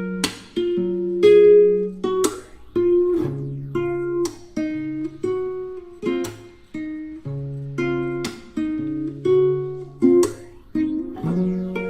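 Background music: an acoustic guitar plucking a gentle melody, note by note.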